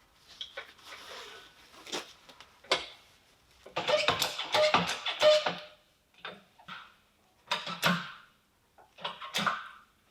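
Irregular knocks, clicks and scrapes of tools and metal parts being handled while a milling machine is taken apart, with a dense clatter and a brief metallic ring about four to six seconds in.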